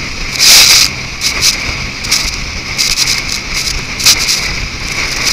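Rescue boat running at speed through choppy water: a steady rush of wind and spray on the microphone over a low engine hum, with loud gusts or spray bursts about half a second in and again around two, three and four seconds in.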